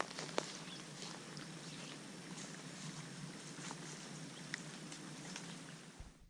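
Quiet outdoor ambience: a steady faint hiss with many scattered light ticks and clicks, cutting off suddenly near the end.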